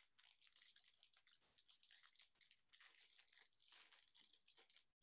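Near silence, with faint rustling and ticking from trading cards being handled and flipped through by hand.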